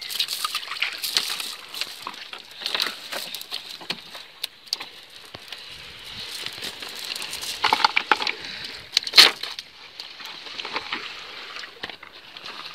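Small freshly caught fish flapping on wet concrete beside a wet cast net being handled: a run of irregular wet slaps, clicks and rustles, with one louder slap about nine seconds in.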